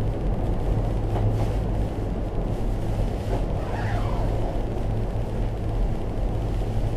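Steady rumble and hum inside an aerial cable car cabin as it runs along its ropes. A brief falling whine comes about four seconds in.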